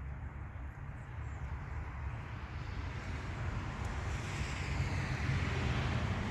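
Steady low vehicle rumble, with a rushing hiss that builds from about four seconds in.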